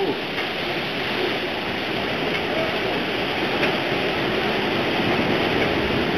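Rough sea breaking and surging in heavy surf around a ship's hull: a steady rush of waves that grows slightly louder.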